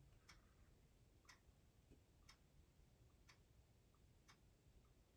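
Near silence with a faint tick about once a second, in an even rhythm.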